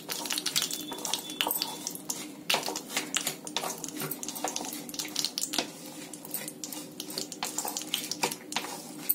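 Hot sesame oil with asafoetida sizzling in an aluminium pan just after the gas is turned off, with a dense run of irregular small pops and crackles.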